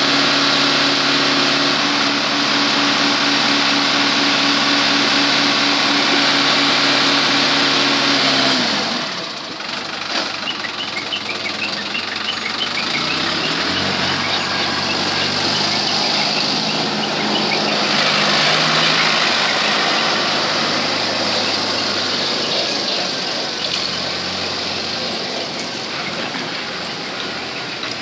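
A motor engine running loudly and steadily with a strong hiss, then easing off about eight seconds in and carrying on at lower, changing revs.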